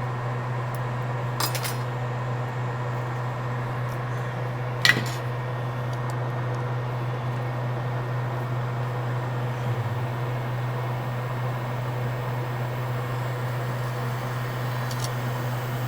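Steady low hum of bench equipment, with sharp clinks of a metal hand tool against the board fixture: one at about a second and a half and a louder one about five seconds in.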